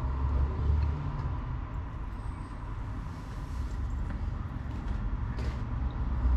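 Steady low outdoor rumble, like traffic or wind, heard through a video doorbell's microphone, with a faint constant high tone and a few small ticks over it.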